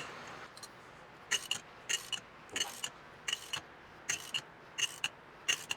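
Spring compressor being wound down on a motorcycle rear shock spring with a wrench: a short metallic rasp with each stroke, about seven strokes evenly spaced a little over a second and a half per two.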